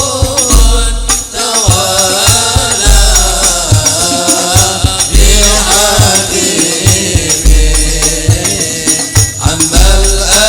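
Arabic devotional qasida sung in long, drawn-out melodic lines, accompanied by hand percussion: a deep bass drum struck about every second and a half with quicker drum and jingle strokes between.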